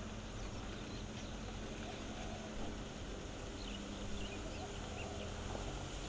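Steady low rumble and hiss of a distant fissure eruption's lava fountain, with a few faint bird chirps about four seconds in.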